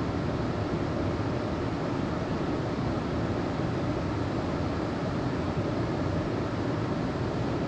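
Steady rush of Lynn Creek's water pouring into a canyon pool, an even noise without breaks.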